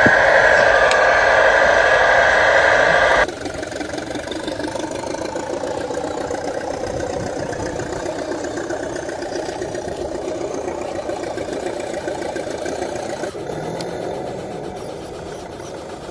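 Remote-control model trucks running with a steady engine-like mechanical noise. The noise is loud for about the first three seconds, then cuts abruptly to a quieter, steady running sound.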